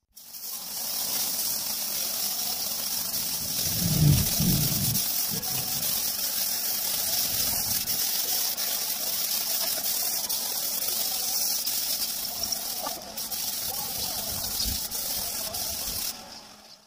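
K3-type air spray gun hissing steadily as it lays down the first thin coat of grey metallic paint on a motorcycle frame, cutting off near the end. A brief low bump sounds about four seconds in.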